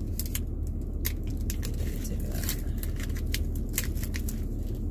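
Small plastic packet crinkling and crackling in the hands as it is handled and opened to take out the accessory inside. A steady low hum runs underneath.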